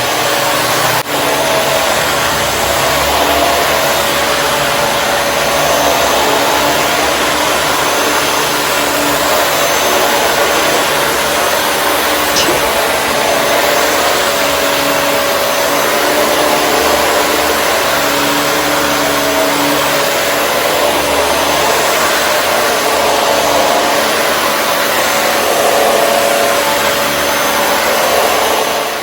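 Vacuum cleaner motor running steadily, a loud rushing noise with a steady whine.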